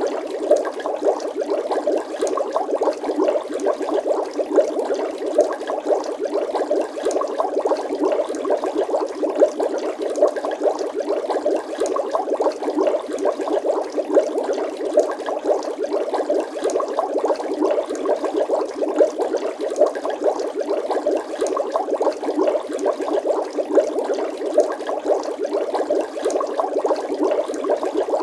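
Water bubbling continuously: a dense, steady stream of small bubbles popping and gurgling.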